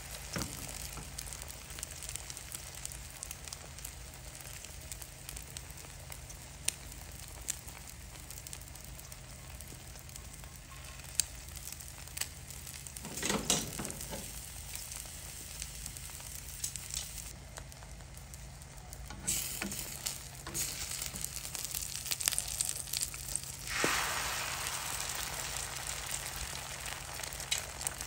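Eggs sizzling in a hot frying pan, with scattered crackles. The sizzle swells briefly about halfway through and grows louder and brighter near the end.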